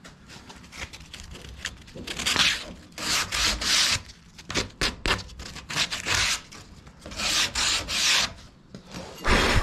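Sandpaper rubbed by hand along the edges of a freshly routed groove in plywood, smoothing the cut. It comes as a series of short back-and-forth scratching strokes in bursts, the loudest a few seconds in and again near the end.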